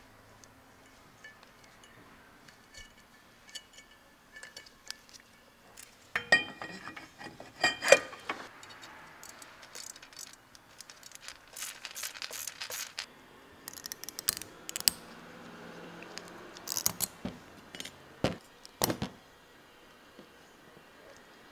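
Metal brake parts and hand tools being handled: clinks, taps and clanks of steel on steel. A burst of clanks with a brief metallic ring comes about six to eight seconds in, then lighter scattered clicks and clinks.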